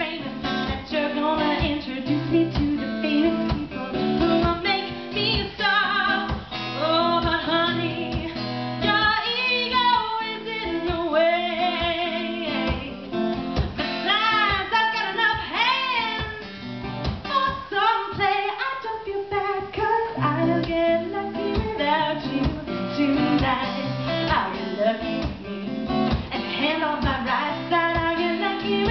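A woman singing a song live over guitar accompaniment, with vibrato on her held notes.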